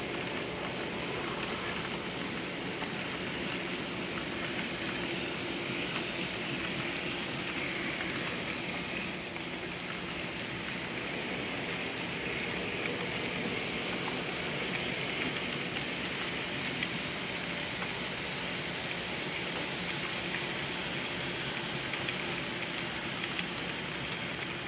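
N scale model train running on track: a steady whir from its small electric motor with a continuous rattle of wheels on rail.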